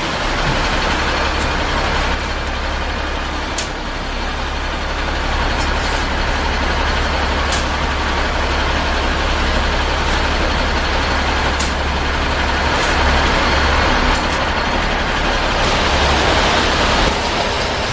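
Heavy diesel truck engine, most likely the concrete mixer truck, running steadily with a deep rumble. A few sharp clicks sound over it.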